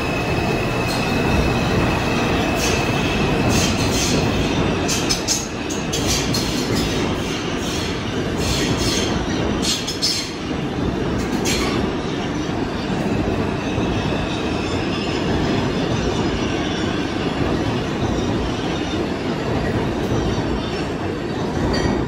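New York City subway train, of the R142/R142A type, running on the track: a steady loud rumble, with a burst of sharp clattering clicks over rail joints and switches through the middle.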